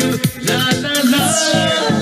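Upbeat dance music with a steady beat and a falling swoosh about a second in.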